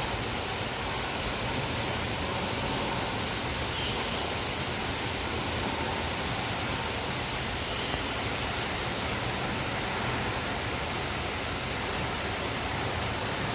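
Heavy rain falling steadily: a continuous, even hiss with no single drops standing out.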